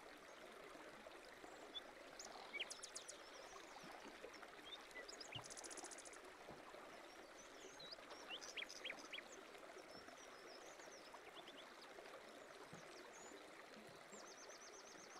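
Faint, steady babble of running water with scattered bird chirps and short high trills.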